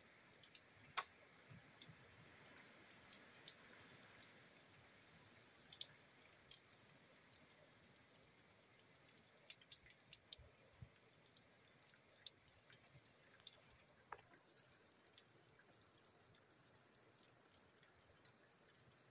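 Rainwater dripping from a roof eave: scattered drops tapping close by, the sharpest about a second in, over a faint steady hiss of rain.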